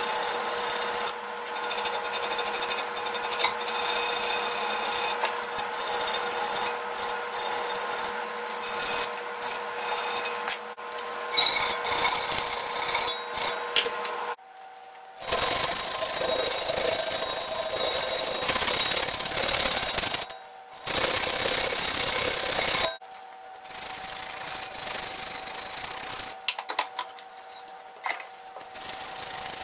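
Electric drill running with a steady whine as a small bit drills out the rivet of a cast-iron can opener. It stops and starts again several times and runs lighter near the end.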